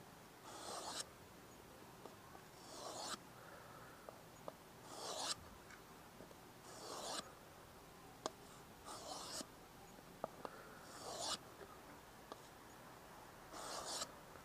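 Mora knife blade drawn across a wet 3000-grit waterstone: seven slow, even sharpening strokes, about one every two seconds, each a hiss that swells and stops, with small clicks between strokes as the blade is set back down.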